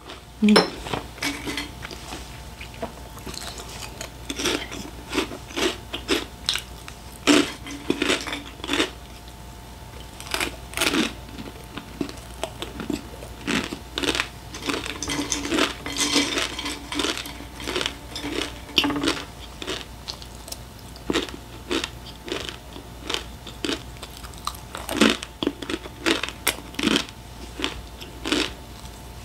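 Close-up crunching and chewing of crisp packaged snacks, crackers and potato chips, in irregular runs of sharp crunches with short pauses between bites.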